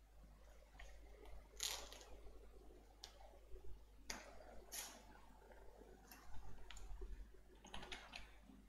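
Faint, scattered clicks of a computer mouse and keyboard: single clicks a second or so apart, then a quick run of keystrokes near the end as a search is typed.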